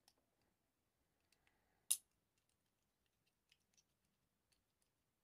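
Faint plastic clicks from a Bakugan toy being handled and turned in the fingers, with one sharper click about two seconds in and a few soft ticks later.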